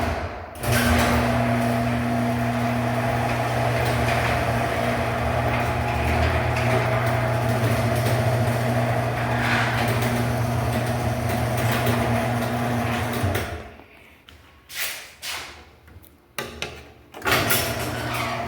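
Garage door opener motor running with a steady hum as it drives the door, cutting off about 13 seconds in. A few short knocks follow, and a motor starts up again near the end.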